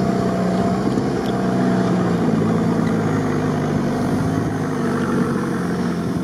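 Engine of a modified UAZ off-roader running steadily under load as it drives slowly through tall grass. It is heard close up from the vehicle's deck, with a slight waver in engine pitch.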